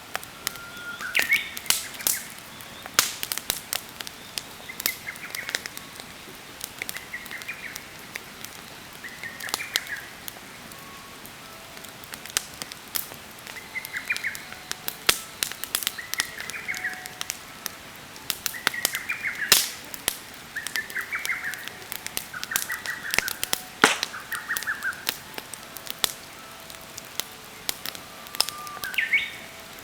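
Wood campfire crackling, with frequent sharp pops and snaps. A bird calls repeatedly over it, a short chirping phrase every few seconds.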